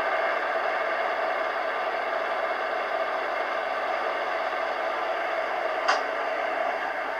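Sound decoder of a Roco model of the DR class 118 diesel locomotive playing the diesel engine's idle sound through its small speaker: a steady whirring drone. A brief sharp sound comes about six seconds in, and the drone begins to fade near the end.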